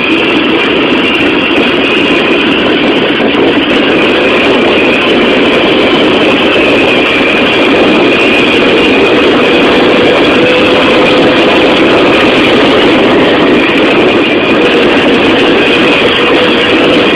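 Jawa Babetta 207 moped's small two-stroke single-cylinder engine running steadily under way, heard loud from the rider's seat, with a faint steady high whine over the noise.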